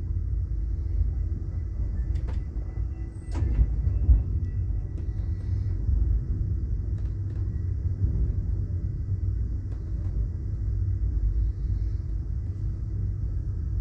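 Steady low rumble inside a passenger train car, with a few short clicks or knocks about two to three seconds in.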